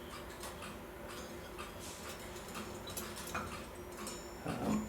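A clock ticking steadily, short sharp ticks about twice a second.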